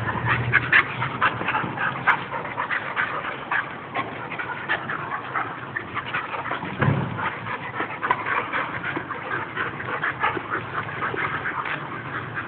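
Two Bull Terriers playing together: a rapid, irregular string of short dog sounds, with a brief low bump about seven seconds in.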